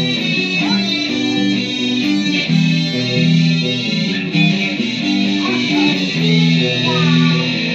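Guitar playing a repeating pattern of held notes, with a few sliding notes.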